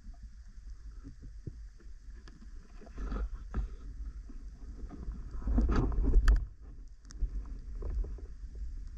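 Underwater sound picked up by a diver's camera: a dull, constant water rumble with scattered sharp clicks and a louder surge of water noise a little past halfway, as the freediver swims with a speargun through waterweed.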